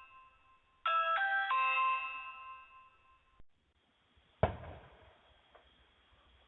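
Electronic doorbell chime: the fading tail of one chime, then a three-note chime about a second in that rings out and fades. A sharp click with a short fading hiss follows about four and a half seconds in.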